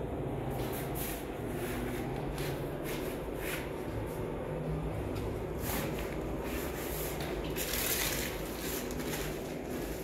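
Self-adhesive bitumen waterproofing membrane and its plastic backing film rustling and crinkling as they are handled and pressed down by hand, in short bursts, with a longer rustle about eight seconds in. A low steady hum runs underneath.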